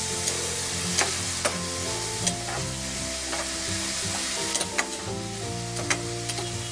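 Chopped onions, green chillies and curry leaves sizzling in hot oil in a metal pan, stirred with a metal ladle that scrapes and clicks against the pan several times. Soft background music plays underneath.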